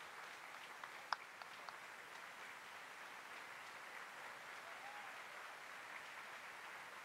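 Audience applauding, a steady dense patter of many hands clapping, with one sharp click about a second in.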